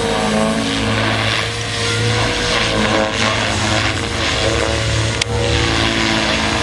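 Radio-controlled helicopter flying close by: a steady drone of rotor and motor whose pitch shifts up and down as it manoeuvres. A single sharp click about five seconds in.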